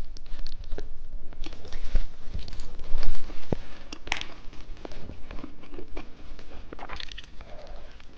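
Irregular taps, clicks and crackles of candy and its packaging being handled and bitten, with a louder knock about three seconds in.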